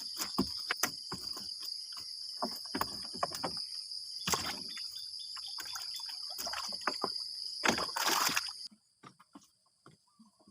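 Water sloshing and splashing with irregular knocks as a fish trap is handled in the water, over a steady high insect drone. The sound drops away abruptly near the end.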